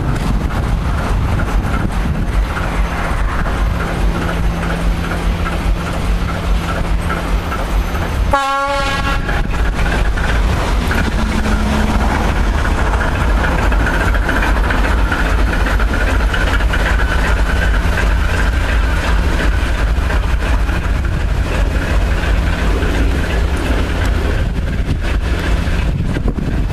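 TEM2 diesel locomotive engine running steadily, with one short horn blast about a third of the way in.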